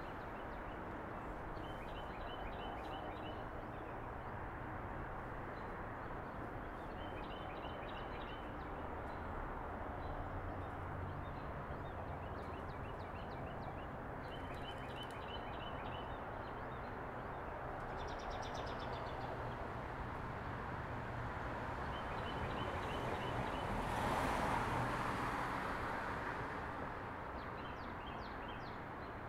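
Steady road-traffic hum, with one vehicle swelling past about 23 seconds in and fading by 27 seconds. Over it, a small bird repeats a short, rapid, high trill every few seconds.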